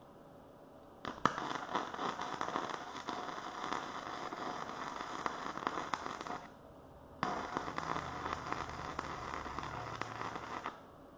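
Flux-core wire-feed welder arc welding steel, a dense, even crackle of the arc and spatter. It runs as two beads: the first starts about a second in and stops after about five seconds, and after a short pause the second runs until just before the end.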